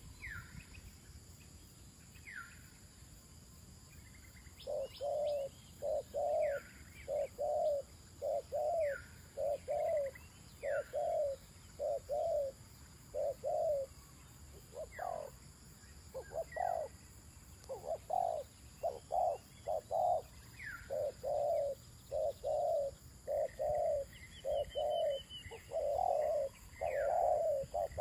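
Terkukur (spotted dove) cooing: a long, steady run of short low coos, one every half second or so, beginning about five seconds in. Behind it another bird gives repeated thin falling whistles and a short high trill.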